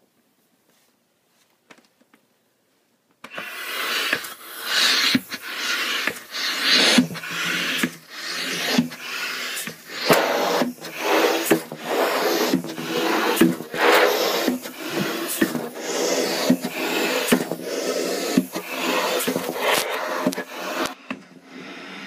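Rubber balloon rubbing against the microphone, starting about three seconds in: a continuous, loud, rough rubbing full of irregular clicks, which drops away shortly before the end.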